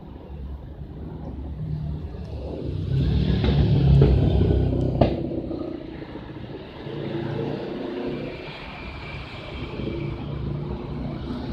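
LG Turbo Drum WF-T9001S top-loading washing machine running, a low rumble that swells, eases and swells again as the tub turns, with one sharp knock about five seconds in.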